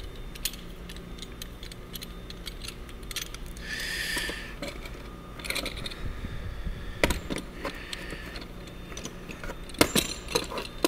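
Metal hand tools clinking and clattering in a toolbox drawer as they are handled and moved, with scattered sharp clicks and a short scraping rustle about four seconds in.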